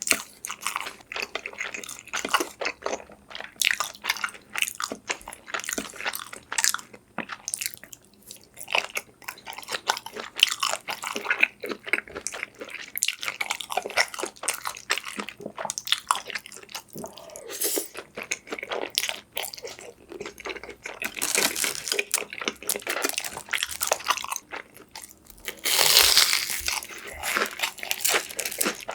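Close-miked eating sounds: crunchy bites and chewing, irregular and continuous. Near the end comes a louder, scratchy noise lasting about a second and a half.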